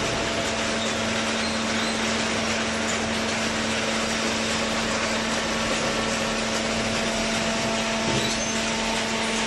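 A hydraulic baling machine running steadily: a continuous mechanical noise with a steady hum that sets in at the start.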